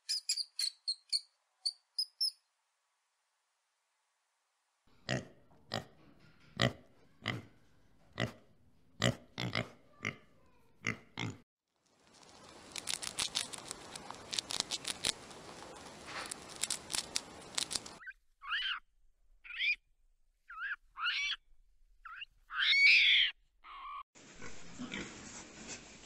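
A run of animal sounds: a small rodent's high squeaks, then a string of soft knocks. Next comes a hamster chewing food with fast crunching clicks, then a few short calls. Near the end, young pigs grunt and shuffle in a pen.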